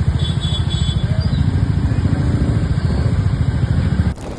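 A vehicle engine running close by, heard as a loud, low rumble of rapid even pulses, like a motorcycle. It cuts off abruptly near the end.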